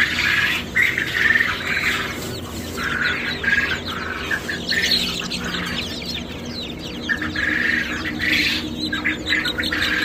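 A flock of poultry squawking and cheeping, many short calls overlapping without a break, over a steady low hum.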